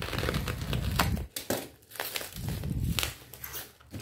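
Plastic bubble-wrap parcel crinkling and crackling as it is cut open with a utility knife and handled, in two spells of rustling with sharp clicks.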